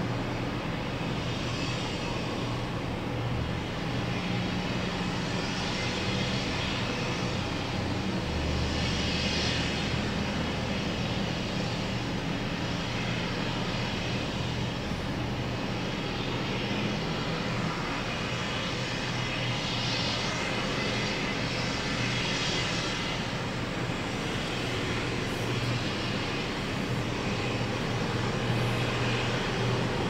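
Engine running steadily, a low, even drone with no hammer blows.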